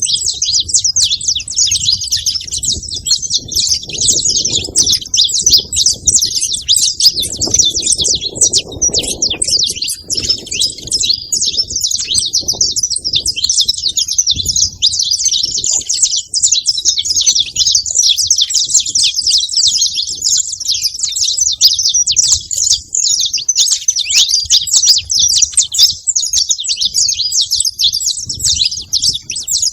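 Saffron finches (canário-da-terra), a male and a female together, chirping and singing without a break in a rapid, dense stream of high notes.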